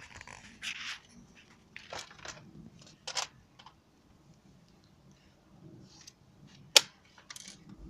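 Clicks and rattles of a 6 mm BB gun and its ammunition being handled and loaded, with one sharp, loud snap near the end.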